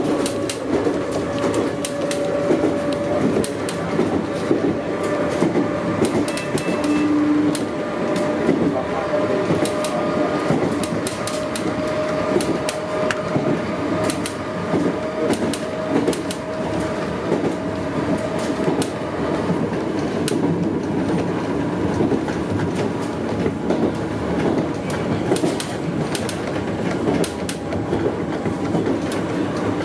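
Inside a Class 484 electric train (a converted ex-London Underground D stock unit) running at speed: steady wheel and rail noise with frequent sharp clicks. A steady whine runs through the first two-thirds and then fades.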